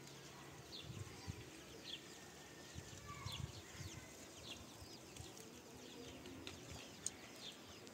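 Small birds chirping faintly: short, high chirps that drop in pitch, coming every half second to a second, with a few soft low thuds.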